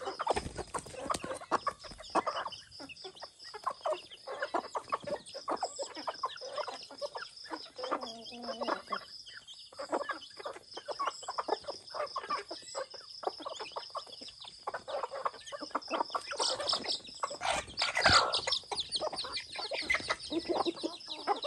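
A flock of chickens, roosters, hens and chicks, clucking and calling while they forage, in many short irregular calls. A louder burst of noise comes about three-quarters of the way through.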